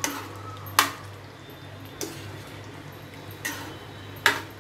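A spoon stirring thick gravy in a non-stick kadai, knocking against the pan about five times, the loudest one near the end, over a low steady hum.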